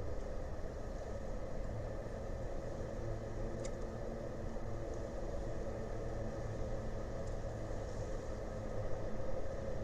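Steady low engine drone with a faint held hum, unchanging throughout, and a faint tick about three and a half seconds in.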